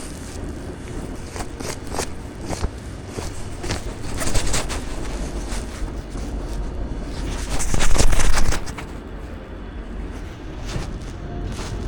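Storm street ambience: wind rumbling on the microphone, with scattered short crackles and scrapes. A louder rush of noise comes about four seconds in, and a stronger one lasting about a second comes near eight seconds.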